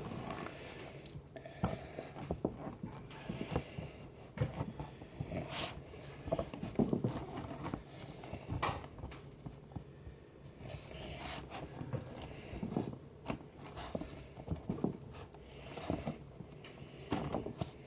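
Hands squeezing and stirring a thick, crumbly cornstarch-and-water mix (oobleck) in a plastic bin: soft, irregular squishes and taps, quiet throughout.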